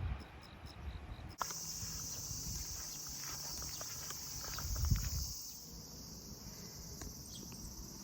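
Steady high-pitched chorus of insects, coming in suddenly about a second and a half in, with a few faint clicks and a brief low rumble partway through.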